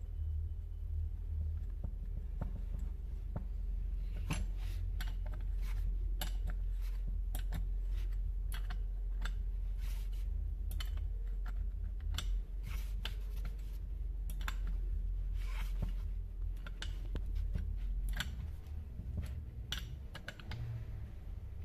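Irregular metallic clicks and clinks of a wrench working the flywheel nut on a chainsaw's magneto flywheel, over a steady low hum.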